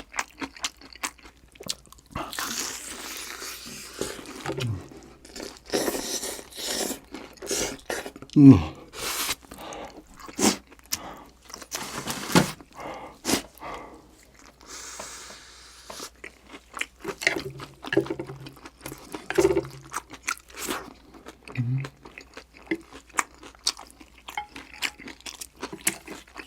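Close-miked eating: crunching and chewing through a crisp breaded cheese pork cutlet, with many short crackles and bites. A few brief low hums of the voice are heard between mouthfuls.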